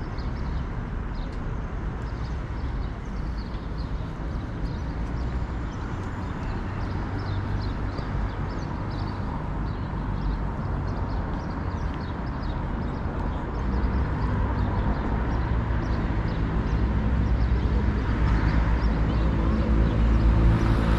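Road traffic running steadily, with a motor vehicle's engine drawing nearer and growing louder over the second half.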